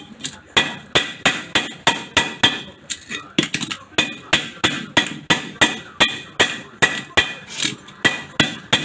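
Rapid, steady hammer blows, about three a second, each with a short metallic ring, chipping away the cement potting packed inside a 110V mini welding machine to break it open.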